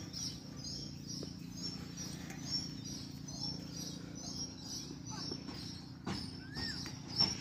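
A bird chirping repeatedly with short, high chirps about twice a second, over a steady low hum.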